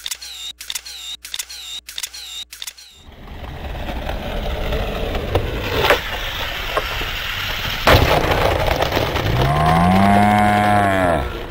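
Skateboard wheels rolling on brick paving, with sharp board impacts from a trick about six and eight seconds in. It is preceded by about three seconds of rhythmic electronic clicking with chirps, and near the end a pitched sound rises and then falls over about two seconds.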